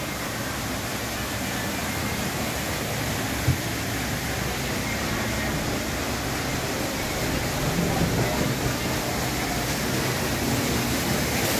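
Steady rushing outdoor background noise that grows gradually louder, with one short thump about three and a half seconds in.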